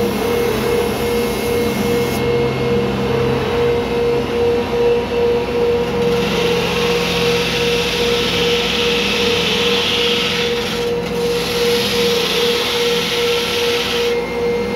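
Woodworking power tool running with a steady hum. About six seconds in a hissing grind rises as it works the wood, breaks off briefly near eleven seconds and carries on.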